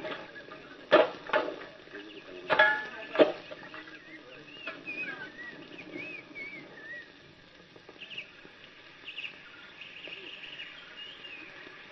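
Four sharp bangs in the first few seconds, then birds chirping in a run of short up-and-down calls.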